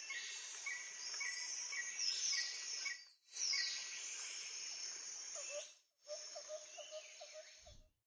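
Woodland ambience of several birds calling over a steady insect hiss. A short chirp repeats about twice a second and high whistles sweep downward; near the end a lower note repeats about four times a second. It breaks off briefly twice and stops just before the end.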